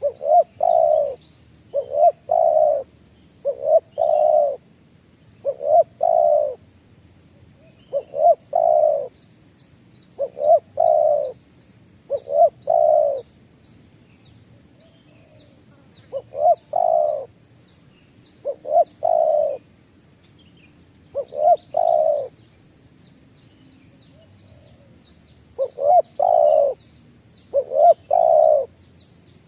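A bird calling in low, repeated phrases of two or three notes, a phrase every one to two seconds, while another bird chirps quickly and faintly at a much higher pitch behind it.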